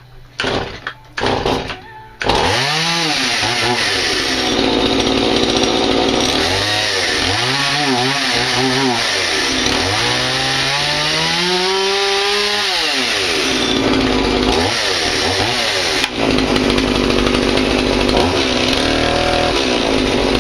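Stihl MS180 two-stroke chainsaw pull-started from cold on full choke: a few quick pulls, then it catches about two seconds in and runs, revved up and down several times. Cold, it is slow to pick up on the throttle.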